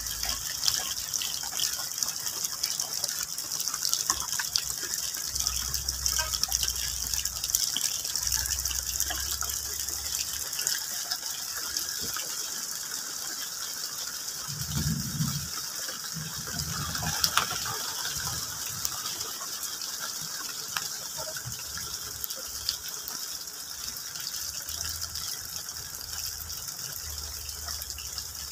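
Steady rain falling on the foliage of a large tree and on the leaf litter below: a dense, even patter of drops.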